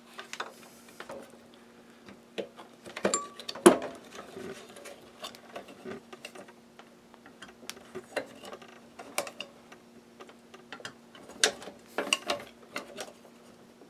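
Scattered clicks, knocks and scrapes of pliers and metal parts being worked by hand as a dryer drum glide is fitted into its slots, over a steady low hum.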